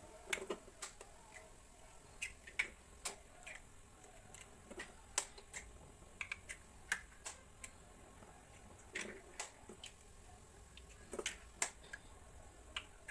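Eggs being cracked one after another into a stainless steel bowl: scattered sharp taps and clicks of shell striking the bowl and breaking, often in small clusters.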